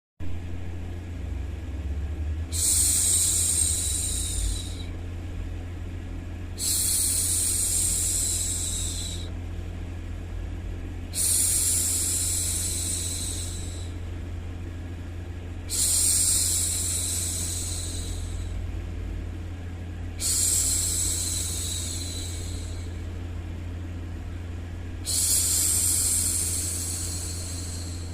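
A woman's long hushing "shhh", repeated six times about every four and a half seconds, each lasting about two seconds and fading out, over a steady low background noise.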